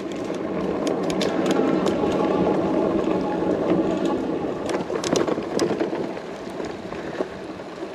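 Rolling noise of a fat-tire electric bike riding over a bumpy dirt and grass track, steady, with a few sharp rattles about five seconds in.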